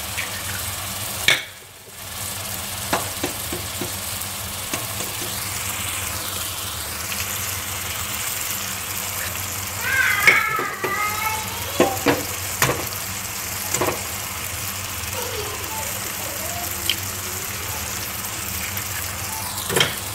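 Eggs frying in hot oil on onion-tomato masala in a non-stick pan: a steady sizzle, with a few sharp taps and clicks scattered through it.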